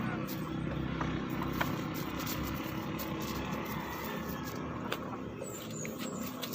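Steady low engine hum, running evenly, with a few faint clicks over it.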